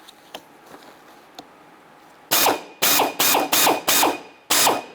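Power drill run in short trigger pulses, about six bursts in the second half, each dropping in pitch, drilling out the head of the pivot pin of a Jeep Liberty interior door handle. A few faint clicks come before it.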